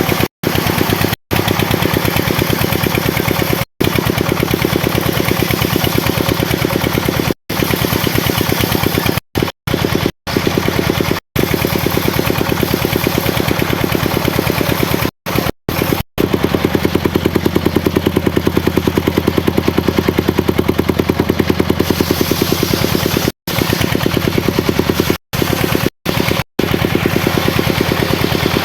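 The engine driving a homemade circular sawmill runs steadily with a fast, even chugging pulse. The sound is cut by many brief dropouts to silence.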